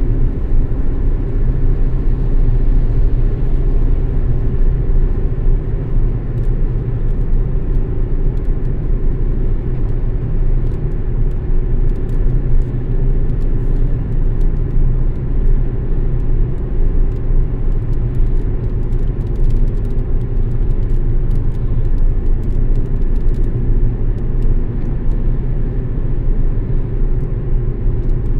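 Steady low rumble of a car driving at highway speed on a wet road, tyre and road noise, with faint scattered ticks.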